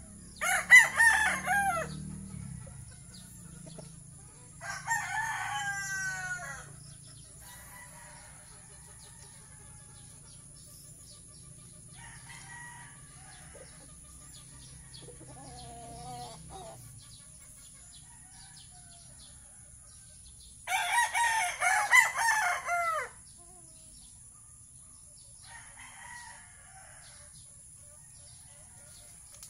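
Five-month-old gamecock stags (young roosters) crowing: three crows, near the start, about five seconds in, and the loudest about twenty-one seconds in, with a few softer, shorter calls between.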